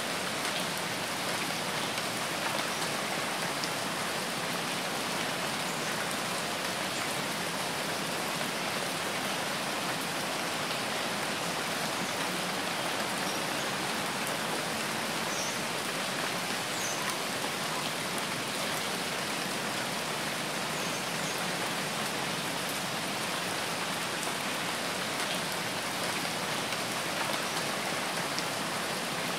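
Steady rain falling: an even, unbroken hiss of many drops at a constant level.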